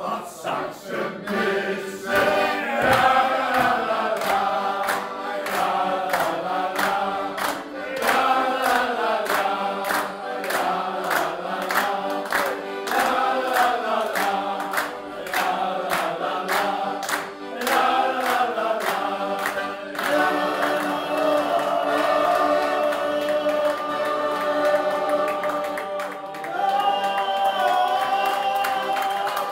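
A group of men singing a song together to accordion accompaniment, clapping along in time. About two-thirds of the way through the clapping stops and the singing carries on over steadier held notes.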